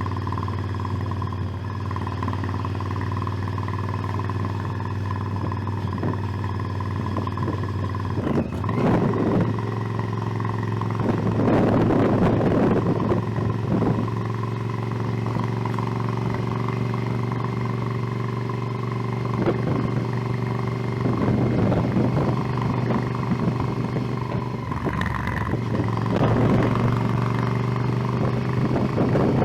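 Motorcycle engine running steadily while riding, its note shifting about eight seconds in. Bursts of wind rush on the microphone come and go several times.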